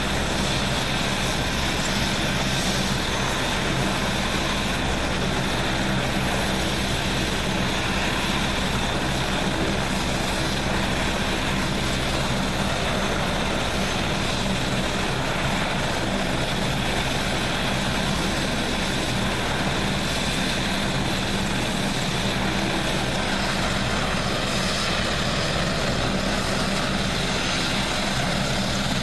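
AgustaWestland HH-101A Caesar helicopter running with rotors turning, a loud, steady rotor and three-turbine engine sound.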